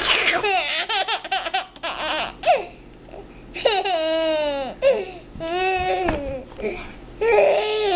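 Baby laughing in a run of quick high bursts, then several high squealing laughs that fall in pitch.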